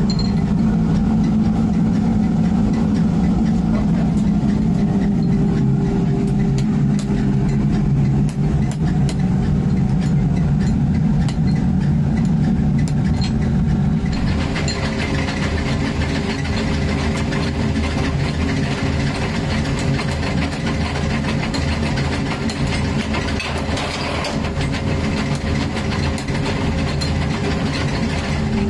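Electric forge blower running with a steady low hum. About halfway a higher hiss joins it.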